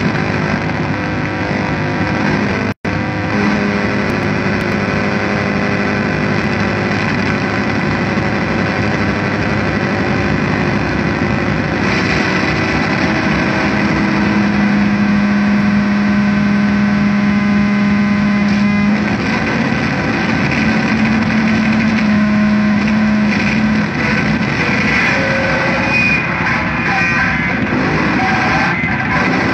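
Live harsh noise music: a dense, continuous wall of distorted noise layered with steady droning tones. It cuts out for an instant about three seconds in, and a strong low drone comes in about halfway through.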